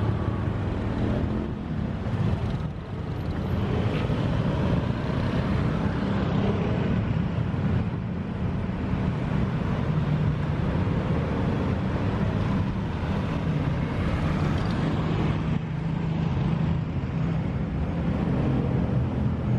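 Road traffic noise: a steady hum of cars and motorbikes running along a city street.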